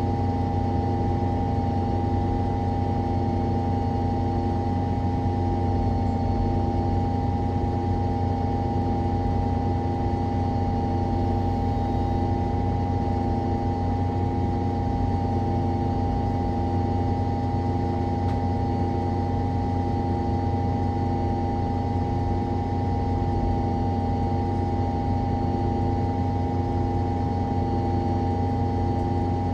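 Rear-mounted natural-gas engine of a 2012 MAN Lion's City G NG313 CNG articulated bus, heard from directly above the engine, running at an even, unchanging speed. A steady whine sits over the engine note, with a faint pulsing about once a second.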